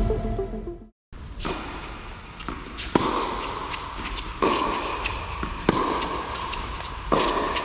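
Tennis rally on an indoor court: sharp racket-on-ball strikes about every second and a half, each ringing on in the hall.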